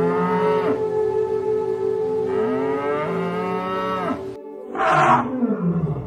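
Cow mooing twice, two long drawn-out calls that rise and fall in pitch. About five seconds in comes a short, loud, harsh blast, an elephant trumpeting, sliding down into a low rumble.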